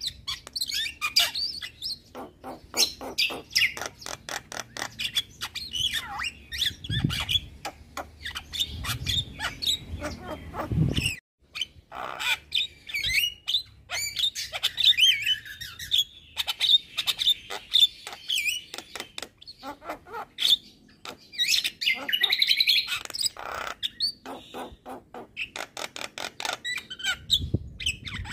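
Javan myna singing a long, fast chattering song of whistles and warbles mixed with rapid clicking notes, broken by a brief gap about eleven seconds in.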